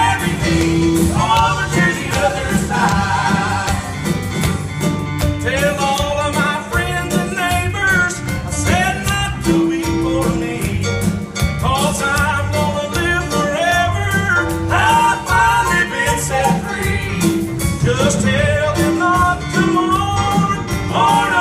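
A live band playing a song through a PA. A woman sings the lead with acoustic guitar and keyboard behind her, and other band members sing along at their microphones.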